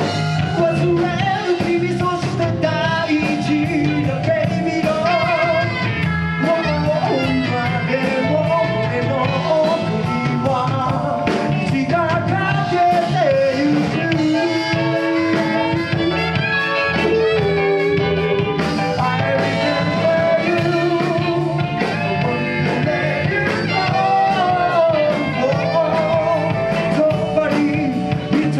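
Live band playing a rock song, with singing over a steady drum beat.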